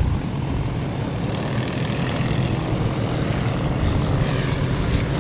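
Hummel UltraCruiser ultralight flying past overhead, its propeller and Volkswagen-conversion four-stroke engine running steadily, getting a little louder near the end.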